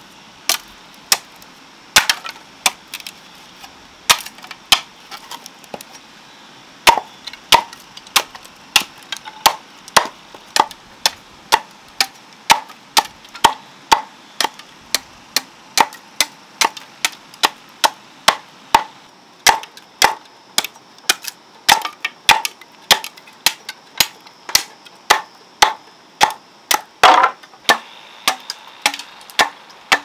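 Machete chopping into the end of an upright green bamboo pole set on a wooden block, splitting it into strips. Sharp single chops, a few scattered at first, then a steady beat of about two a second from several seconds in.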